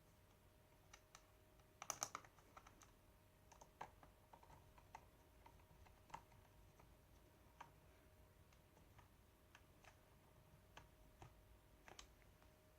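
Faint scattered clicks and ticks of a small screwdriver and screws being driven back into a laptop's plastic case, with a louder cluster of clicks about two seconds in.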